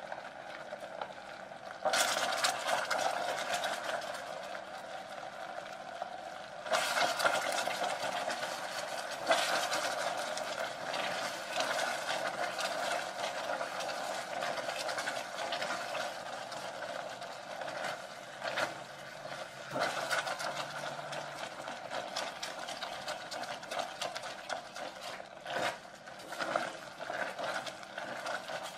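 Hot caramel sizzling and bubbling in a stainless steel pot as warm whipping cream hits it, with a wooden spatula stirring and scraping against the pot. The sizzle comes in abruptly about two seconds in and grows again near seven seconds.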